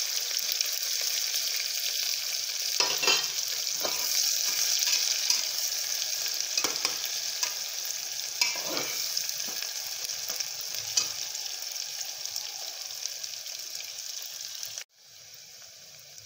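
Three sliced onions frying in hot oil in a pan: a steady sizzle with a few scrapes and knocks as they are stirred. Near the end the sizzle cuts off abruptly, leaving a fainter hiss.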